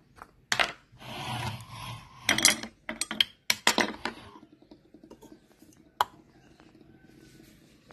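Small objects being handled on a wooden tabletop: a kitchen scale slid into place and a plastic cup set down on it. The handling gives a run of clicks and knocks with some rubbing in the first few seconds, then a single sharp tap about six seconds in.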